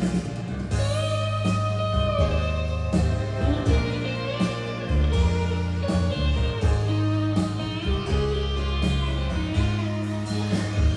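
Recorded music played back on a home hi-fi. An instrumental stretch of a slow blues-tinged ballad, led by electric guitar with bending, gliding notes over a steady bass line and backing.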